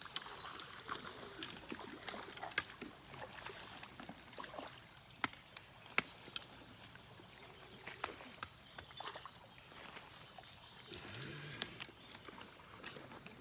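Outdoor background with several sharp clicks scattered through it and a faint voice near the end.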